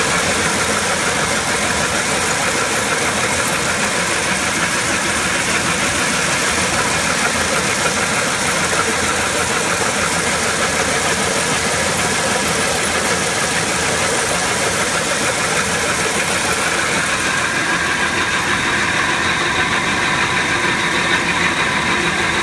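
Yongwon SP300 cone crusher running under load as gravel is fed into its bowl and crushed: a loud, steady mechanical din.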